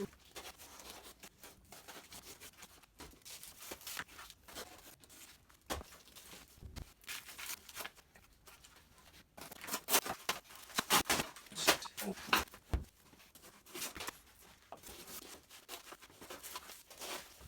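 Cardboard shipping box and spray-foam packing being torn and pulled apart by hand, in scattered rips and scrapes with a busier flurry about ten seconds in.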